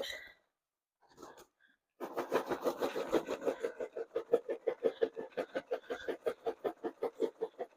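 Popcorn being shaken with seasoning powder in a lidded microwave popcorn maker. It gives a fast, rhythmic rattle of about seven shakes a second, which starts about two seconds in after a brief pause.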